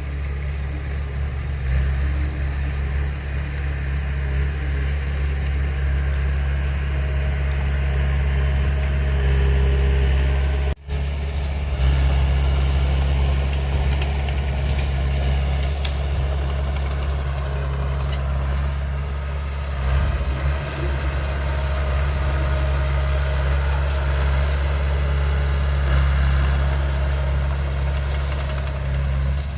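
Heavy diesel earthmoving machinery running steadily with a deep, constant engine hum, briefly cut off about eleven seconds in.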